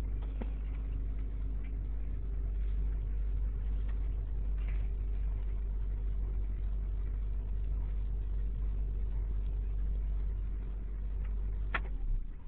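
1993 Honda Accord EX's 2.2-litre F22A6 four-cylinder idling steadily after a cold start, heard from inside the cabin. Near the end there is a click, and the engine sound drops away sharply.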